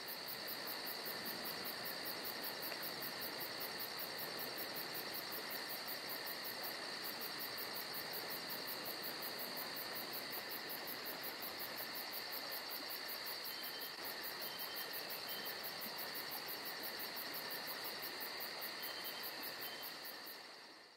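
Insects chirring steadily in a high, even drone with a faint regular pulse, fading out near the end.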